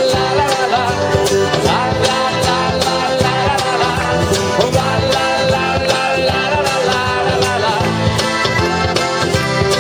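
Live folk-rock band playing an upbeat song: accordion chords, strummed guitars and a cajon keeping a steady beat.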